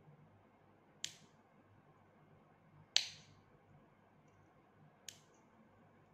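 Three sharp, light metallic clicks about two seconds apart, the middle one loudest: small orthodontic pliers working a 0.5 mm wire as it is bent into a finger spring.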